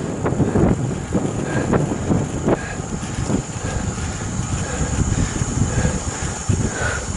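Wind buffeting the microphone of a helmet-mounted action camera while cycling, with irregular thumps and a steady low rumble.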